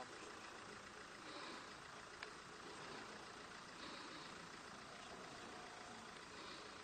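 Faint, steady running of an idling vehicle engine, with a single sharp click about two seconds in.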